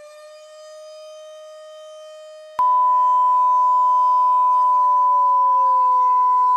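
A civil defense siren sounds steadily, then slowly falls in pitch as it winds down. About two and a half seconds in, a loud steady single-pitch emergency alert attention tone starts with a click and runs on over it, signalling that an emergency broadcast message is about to follow.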